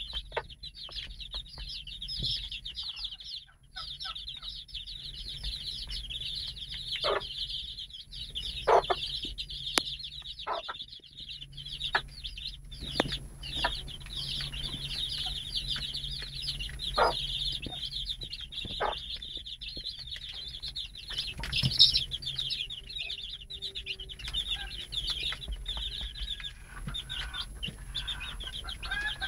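A brood of about ten-day-old bantam Marans chicks peeping continuously in a dense chorus of short, high chirps. Scattered short taps sound now and then.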